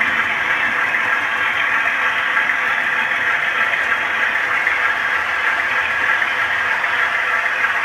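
OO gauge model Class 47 diesel locomotive's DCC sound decoder playing a steady engine idle through the model's small speaker, thin, with little bass.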